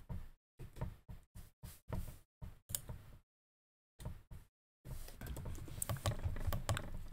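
Computer keyboard keys clicking in a run of separate taps. There is a silent stretch a little past halfway, then the clicking picks up again.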